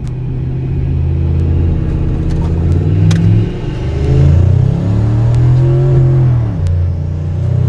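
Turbocharged 2003 Ford F-150 engine accelerating at full throttle from a standstill, heard from inside the cab. The pitch climbs, drops at an upshift about three and a half seconds in, climbs again and drops at a second upshift near the end.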